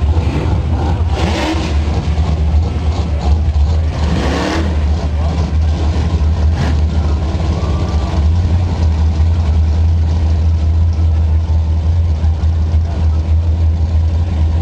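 Holden VT Commodore running at high revs through a rolling burnout, its rear tyres spinning in their own smoke. The sound is loud and continuous, with rising revs and two short, louder bursts in the first few seconds.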